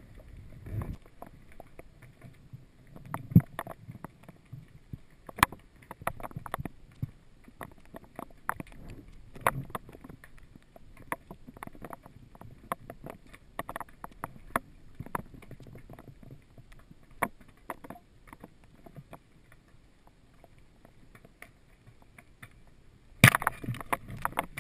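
Underwater sound picked up by a diver's camera: scattered sharp clicks and knocks, a few of them louder, over a low murmur. Near the end a dense rush of hissing noise comes in.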